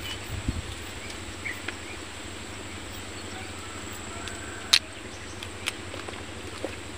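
A kitchen knife cutting pieces of pumpkin in the hand, making several short sharp clicks, the loudest just under five seconds in, over a steady low rumble.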